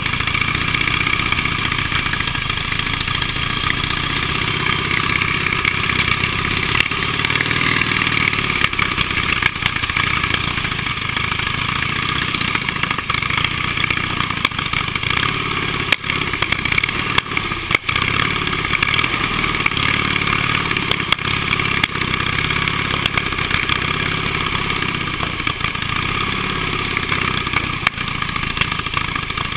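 Vintage motorcycle engines idling and running at low revs, close to the microphone, with scattered short clicks.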